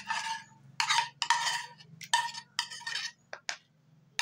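A metal spoon scraping thick, cooked cornstarch paste out of a small saucepan into a plastic tub: a run of short scrapes and clinks about half a second apart, ending in two sharp taps of the spoon against the pan.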